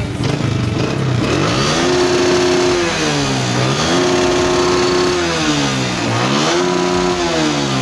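Honda CG125's single-cylinder four-stroke engine running after a tune-up, blipped three times: each time the pitch rises, holds for about a second and drops back to idle. It runs evenly with no misfiring.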